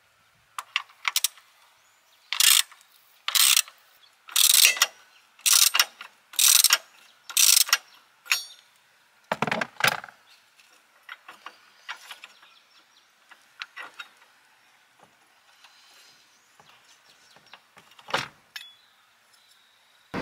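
Socket ratchet wrench ratcheting in short runs about once a second, backing off the nut of a 12-volt car battery's hold-down bracket. A heavier knock about halfway through, then scattered light clicks and another knock near the end as the bracket comes off.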